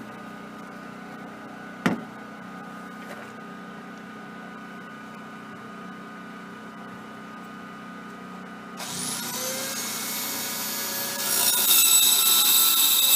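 A generator runs steadily in the background, with a single knock about two seconds in. Near nine seconds a laser-guided circular saw spins up with a rising whine, and about two seconds later its blade bites into the wooden board and the cut is much louder.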